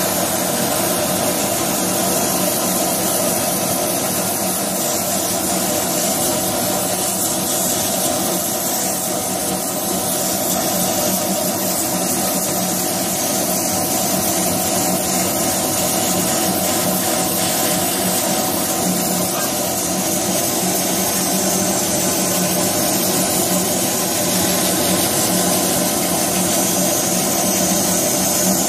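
CO2 laser cutting machine running as it cuts paper: a steady hiss with a low hum, from its air-assist and extraction airflow.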